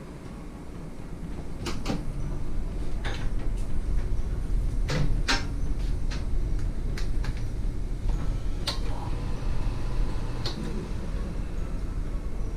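Irregular clicks and knocks of metal meat-slicer parts being handled and fitted, a few with a brief metallic ring, over a steady low hum.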